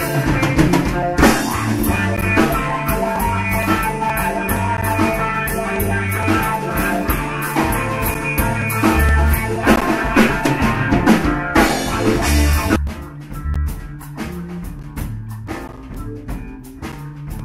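Live rock band playing: electric guitar, bass and drum kit together. About thirteen seconds in the full band drops back to a quieter, sparser passage.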